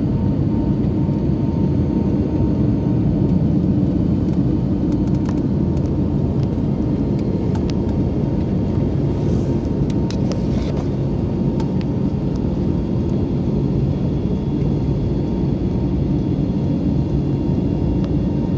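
Steady drone inside an airliner's cabin in flight: jet engine and airflow noise, low and even, with a faint steady whine running through it.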